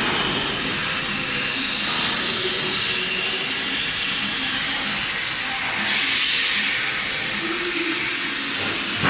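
Mechanised oxy-fuel gas cutting torch hissing steadily as its oxygen jet cuts through 100 mm thick steel plate.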